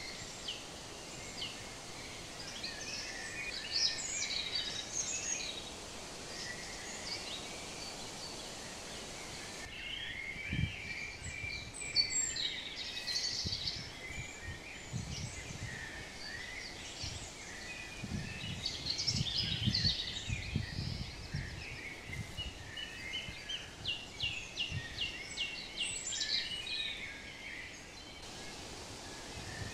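Small birds chirping and twittering over steady background noise, with a quick run of evenly repeated chirps a little after twenty seconds in. From about ten seconds in, soft low thumps come and go beneath the chirping.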